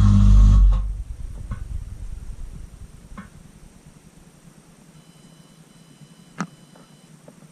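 Cylinda dishwasher's pump motor humming steadily, then shutting off under a second in at the end of the rinse cycle. The water rumble dies away over the next couple of seconds, leaving the quiet inside of the tub with a few drips and ticks, one sharper click near the end.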